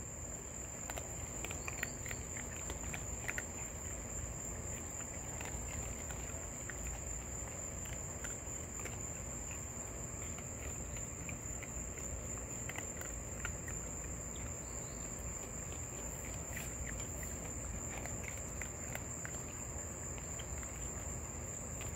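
Crickets trilling in one steady high-pitched tone, with faint scattered clicks and rustles of raccoons eating dry food close by.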